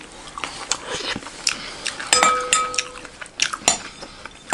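A metal spoon stirring and scooping a dry puffed-rice chatpatey mix in a glass bowl. It makes scattered scraping clicks, with one clear ringing clink of the spoon against the glass about two seconds in.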